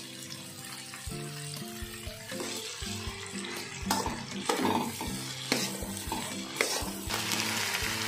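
Chopped okra sizzling in hot oil in a steel pan while a slotted steel spatula stirs it. The spatula scrapes and knocks against the pan, most busily from about four seconds in.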